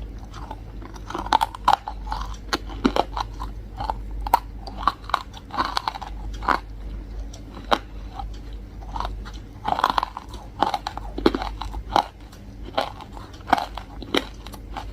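A person biting into and chewing hard, crunchy chunks close to the microphone, with a rapid, irregular series of loud crunches.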